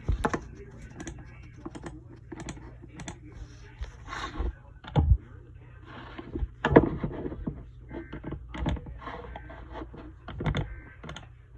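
Irregular clicking and tapping of typing on a computer keyboard, with a few heavier knocks, over a steady low hum.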